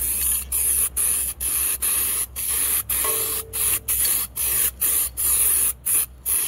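U-Pol aerosol can of etch primer spraying in a quick run of short hissing bursts, roughly two a second, as light coats go onto aluminium chainsaw parts.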